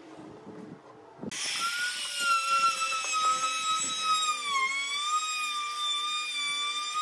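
A compact trim router's motor starts about a second in and runs with a high whine, routing a recess into a wooden board; its pitch sags briefly partway through.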